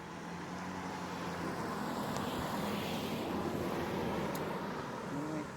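Engine noise of a passing vehicle, swelling toward the middle and easing off near the end.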